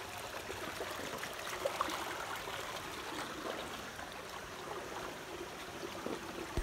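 Shallow stream water running and trickling steadily, with small scattered splashes.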